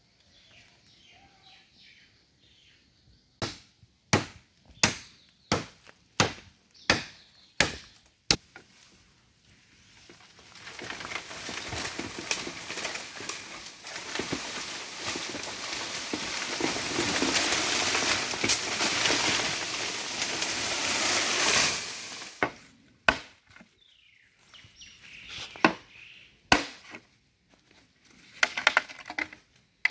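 A blade chopping into a green bamboo culm: about eight sharp strokes in a steady rhythm. Then a long, loud rustle of bamboo leaves and stems as the cut culm is pulled down through the grove, and a few more chops near the end as the felled pole is worked on.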